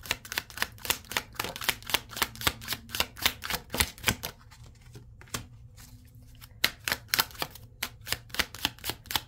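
A tarot deck being shuffled by hand: a quick run of sharp card clicks and slaps, several a second, that thins out about four seconds in for a couple of seconds before the shuffling picks up again.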